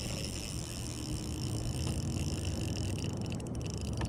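Spinning reel being cranked against a hooked fish, a steady whine from the reel over low rumbling noise, the whine fading about three seconds in.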